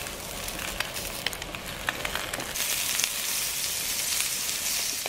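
Food sizzling in a hot frying pan, a steady hiss with scattered small pops. About halfway through the sizzle grows louder and hissier as a pat of butter melts and bubbles in the pan.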